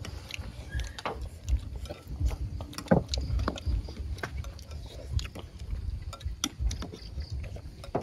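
Chopsticks, spoons and bowls clicking and clinking as people eat, scattered light taps through the whole stretch, over a low, uneven rumble.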